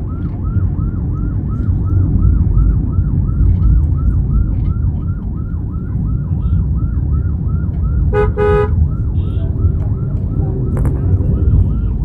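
Steady engine and road noise inside a moving car in traffic, with a faint warbling siren-like tone that falls in pitch and repeats about four times a second. A vehicle horn blasts once, briefly, about eight seconds in.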